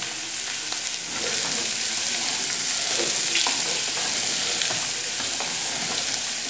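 Green cowpeas (black-eyed peas) sizzling as they are sautéed in hot charque fat in a pot, stirred with a wooden spoon that clicks and scrapes against the pot. The sizzle grows louder about a second in.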